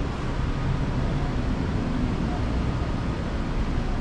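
Steady low rumbling background noise, with faint distant voices underneath.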